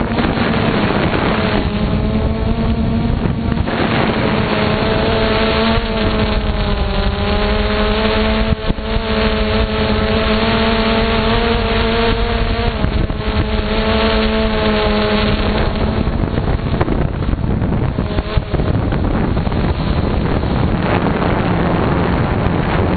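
Small drone's electric motors and propellers buzzing steadily in flight: a low hum with a higher, slightly wavering whine over it for most of the time, and wind rushing on the microphone.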